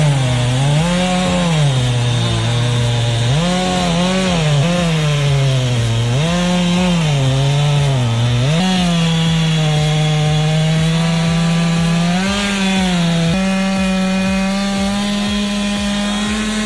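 Chainsaw cutting wood at high revs, its engine pitch repeatedly dipping as the chain bogs in the cut and picking back up. In the second half it holds a steadier, slightly higher pitch.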